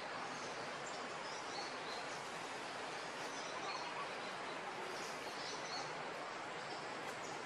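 Steady outdoor background hiss with faint, short high-pitched chirps scattered through it.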